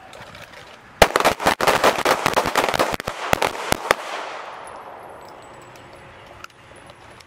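A line of handguns firing together in a rapid, ragged volley: dozens of overlapping shots that start about a second in and run for about three seconds, then an echo that dies away.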